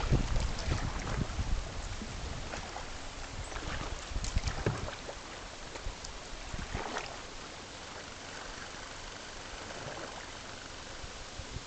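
Water splashing and gurgling around a kayak moving down a river. Wind rumbles on the microphone during the first half, with a few louder splashes. Later only a quieter, steady rush of water remains.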